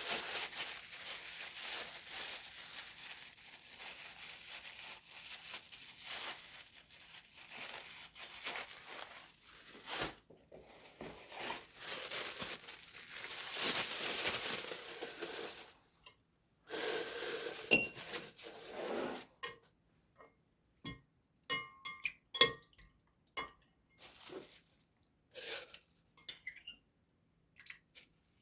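Kitchen work with dishes and utensils: a long stretch of continuous rustling and scraping, then from about two-thirds of the way in, separate short clinks and knocks of dishes, containers and cutlery being set down and handled.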